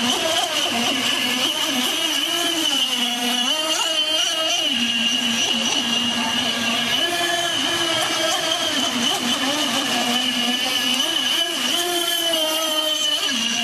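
Radio-controlled speedboat's motor whining, its pitch rising and falling repeatedly as the throttle changes while the boat races around the pond. A steady splash of water from the fountains runs underneath.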